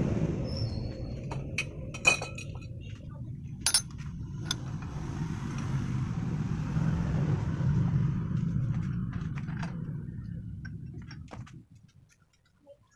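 Sharp metal clinks and taps as a steel tube and a homemade bent-steel tube-end clamp are handled and fitted together on an iron bench vise, the loudest about two and four seconds in. Under them runs a steady low rumble that fades out near the end.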